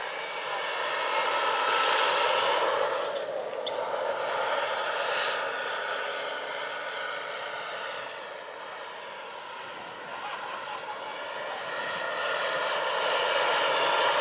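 Turbine-powered radio-controlled Bell 412 scale model helicopter in flight: a steady high turbine whine over rotor and engine noise. It swells louder as the model passes close about two seconds in, fades, and grows loud again near the end.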